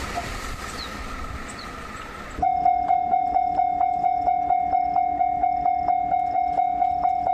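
A passing train fades away; then, about two and a half seconds in, the sound cuts suddenly to a steady ringing tone struck about three times a second, typical of a Japanese electronic level-crossing warning bell.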